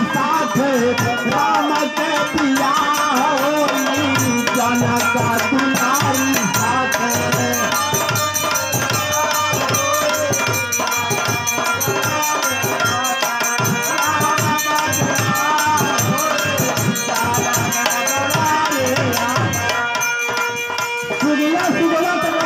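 Live Hindi devotional folk song: a man singing into a microphone over tabla-style hand-drum accompaniment.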